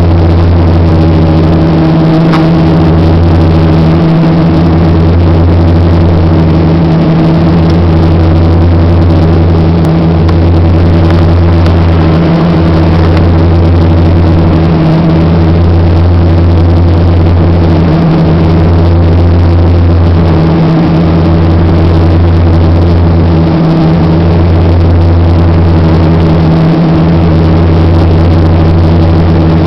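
Cabin noise of an Embraer EMB 120 Brasília's twin turboprops in flight: a loud, steady low propeller drone with a rumble of noise above it. The drone pulses every two to three seconds.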